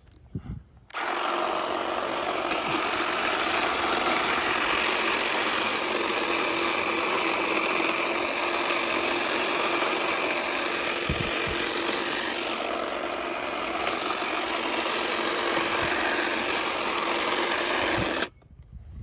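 Black+Decker electric hedge trimmer switching on about a second in, then running steadily with its blades trimming a shrub, and switching off sharply just before the end.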